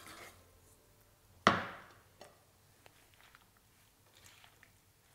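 A single sharp knock about one and a half seconds in, fading over about half a second, then a few faint light clicks.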